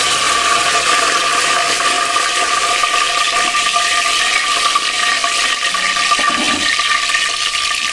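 Whole spices and bay leaves frying in hot refined oil in an aluminium pressure cooker: a loud, steady sizzle.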